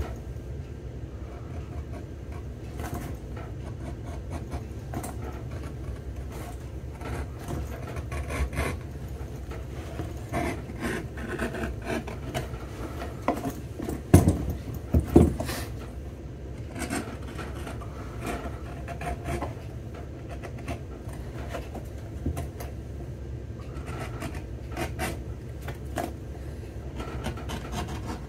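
Hands and a small hand tool scraping and picking at the welt of a leather boot, making scattered small scrapes and clicks, with two louder knocks about halfway through. A steady low hum runs underneath.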